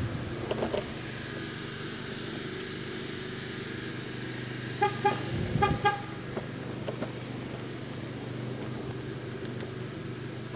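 Self-balancing hoverboard rolling over a concrete sidewalk with a steady low hum. About five seconds in come two quick runs of short beeps, with a few low bumps around them.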